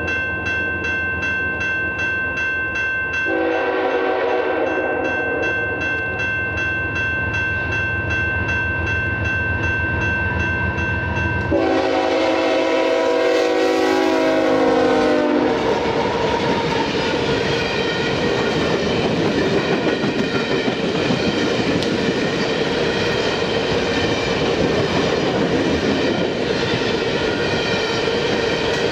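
Freight train horn sounding a long blast as the lead GE ES44AC locomotive approaches, then a second, louder blast about twelve seconds in as the locomotives pass. After that come the steady rumble and clatter of empty coal hopper cars rolling by.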